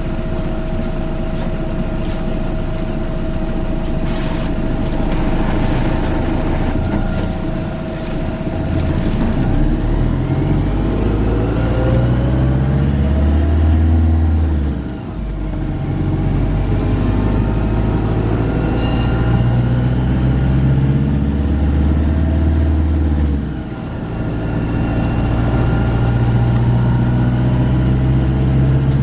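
Volvo B5LH hybrid bus's four-cylinder diesel and electric drive running under way. The note climbs with a rising whine, drops sharply about halfway through and again about four-fifths through, then builds again each time. A short sharp click comes a little before two-thirds of the way.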